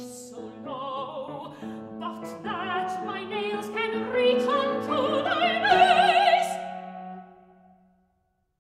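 A woman sings opera with wide vibrato over piano accompaniment. The phrase climbs to its loudest, highest held notes about six seconds in, then dies away shortly before the end.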